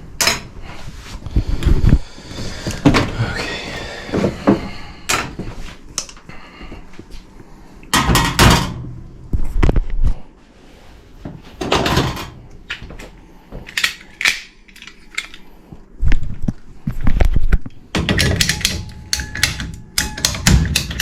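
Irregular thunks, knocks and clatters of hands-on work with tools and metal parts during an air handler change-out.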